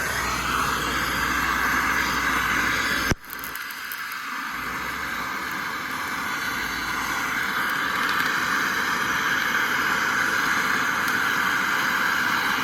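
Refrigeration soldering torch burning with a steady hiss. A sharp click comes about three seconds in; the hiss then drops away and slowly builds back up.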